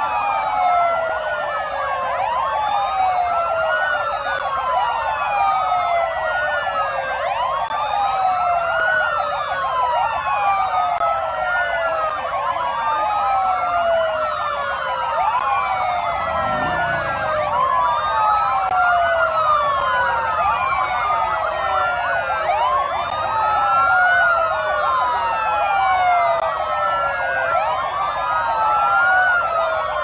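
Several police sirens wailing at once, out of step, so their rising and falling wails overlap in a continuous tangle.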